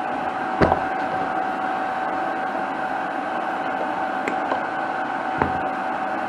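A steady machine hum with one even tone running throughout, broken by two short, sharp knocks, one about half a second in and another about five seconds later.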